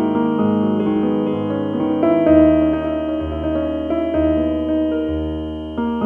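Background instrumental music: a melody over a bass line whose note changes about once a second.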